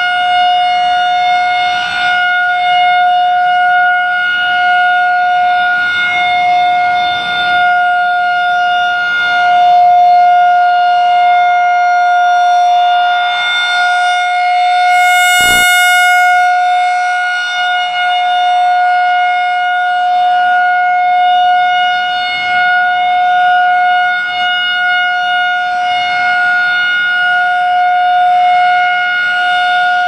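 Federal Signal 2001-130 rotating electromechanical siren sounding a steady single-tone alert. The pitch holds steady while the rotating horn sweeps past, the tone turning brightest about halfway as the horn faces the listener.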